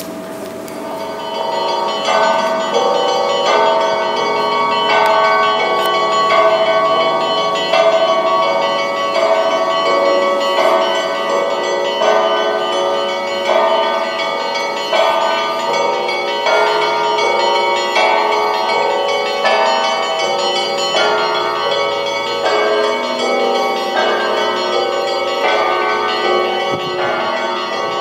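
Russian Orthodox monastery bells ringing, several bells of different pitches struck together in a repeating pattern. Fresh strikes come about every second and a half over a continuous ringing, with the peal swelling to full strength in the first couple of seconds.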